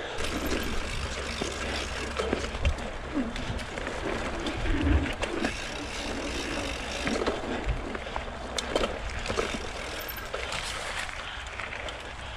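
Mountain bike being ridden: tyres rolling on the track under a steady low rumble, with many scattered clicks and knocks from the bike.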